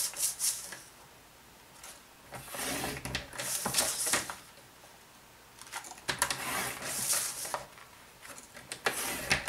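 Stampin' Up! paper trimmer's scoring blade drawn twice down its track across cardstock, each stroke a scraping slide of about two seconds. The strokes are separated by small clicks and rustles as the card is repositioned against the rail.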